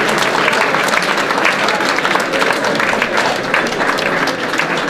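A crowd of people applauding, the clapping easing off slightly near the end.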